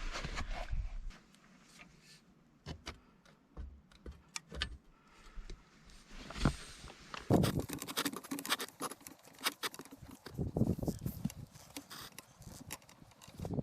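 Irregular clicks, knocks and rattles of tools and metal hydrant parts being handled. The clatter grows busier about halfway through.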